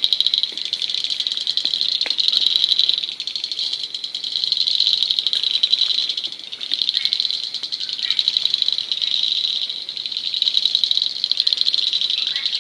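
A chorus of frogs calling in rapid pulsed trills that overlap continuously, swelling and fading every couple of seconds. Fainter, higher-pitched rattles recur at intervals.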